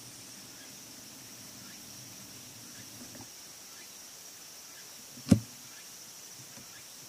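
Insects chirring steadily at a high pitch, with one sharp knock about five seconds in.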